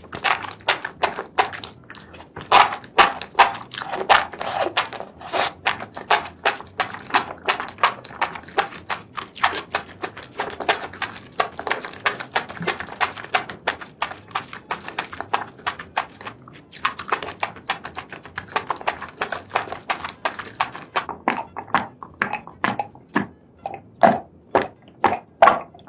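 Close-miked eating sounds: wet chewing, smacking and slurping of noodles and seafood in sauce. Near the end, a run of evenly spaced gulps as a drink is swallowed.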